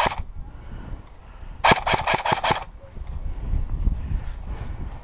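Airsoft gun firing a quick string of five shots, about five a second, a little under two seconds in, over a low rumble of wind on the microphone.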